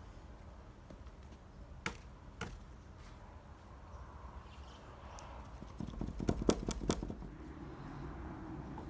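Firewood being split with an axe: two sharp wooden knocks about two seconds in, then a quick run of several louder knocks around six to seven seconds in.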